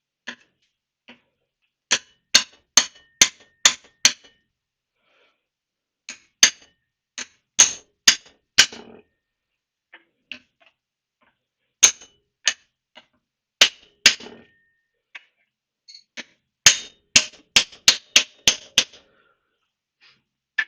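Hammer blows on a 38 mm socket used as a drift, tapping a fork oil seal down into a BSA fork lower leg. Sharp taps come in four bursts of several quick strikes, with short pauses between them.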